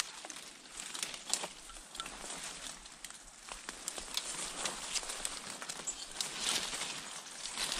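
Footsteps and a person pushing through dry brush: branches swishing and twigs snapping in an irregular string of small clicks.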